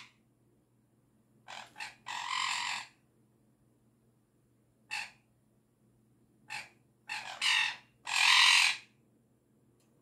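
Sun conure giving harsh alarm cries, the sound it makes when startled by something. About seven cries come in uneven bursts, some short and some drawn out, and the longest and loudest is near the end.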